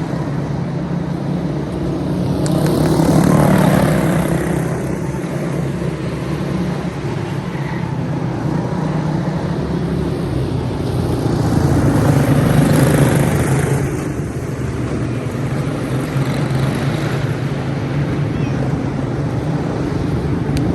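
Racing karts' four-stroke Briggs & Stratton Animal engines running on track. The engine noise swells twice as karts pass close by, a few seconds in and again just past the middle.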